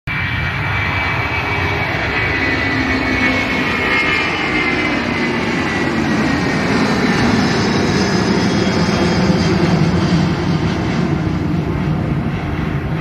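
Jet airliner taking off: the engines run at full power, a loud, steady rushing noise over a low rumble, with a high whine that slowly falls in pitch as the plane climbs away.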